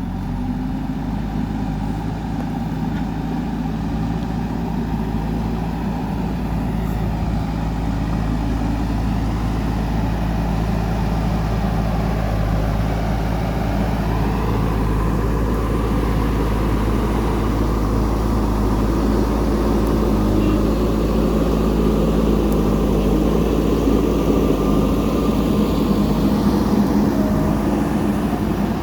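Diesel engine of a JCB 3DX backhoe loader running steadily at working revs, growing slowly louder.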